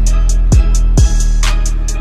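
Hip-hop music with a deep, steady bass, kick drums that drop in pitch about twice a second, and hi-hat ticks.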